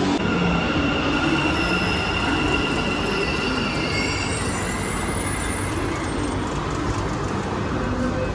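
Metro train running on the track: a steady rumble with high wheel squeals that drift up and down in pitch.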